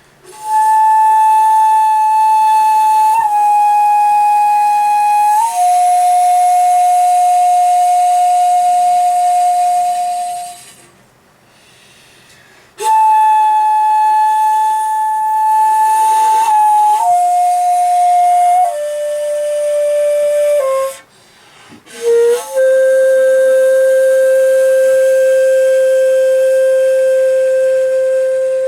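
Solo komuso-style shakuhachi (end-blown bamboo flute) playing slow, breathy long tones in three phrases with breath pauses between them. Each phrase steps down in pitch and settles on a long held note, the last one lowest.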